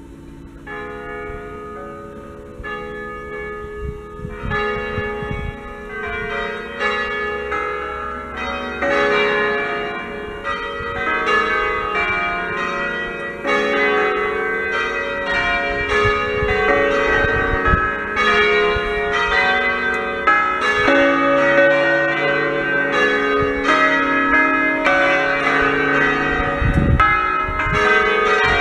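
A full peal of six bronze church bells by Fratelli Ottolina (1928), tuned in D-flat, swinging up to mouth-upward and striking on each swing. The strikes begin about a second in and grow denser and louder over the first ten seconds as more bells join, then the bells ring together in a continuous overlapping pattern of strikes.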